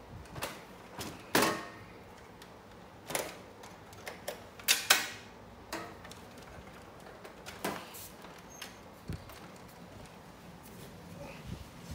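Scattered knocks, clicks and scrapes of an Onkyo TX-SA605 AV receiver's metal case being handled and turned around on a surface. The loudest knocks come about a second and a half in and around five seconds in.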